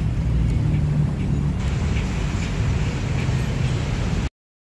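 A steady low mechanical hum over a rushing noise, cut off abruptly near the end.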